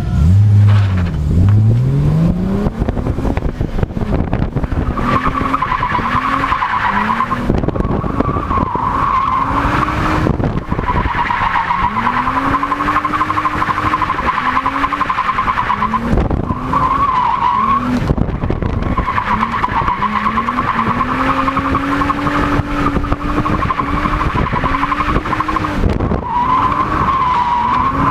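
BMW E30's M20B27 straight-six engine revving up and down again and again as the car drifts. From about five seconds in, the tyres squeal in long stretches that break off briefly several times.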